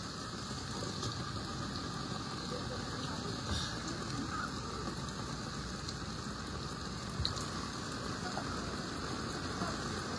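Steady wash of water noise from a flood, with a few faint knocks.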